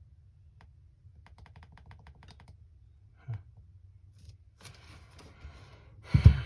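Quick run of small keyboard-like clicks, a single louder click, then handling rustle and one loud thump near the end.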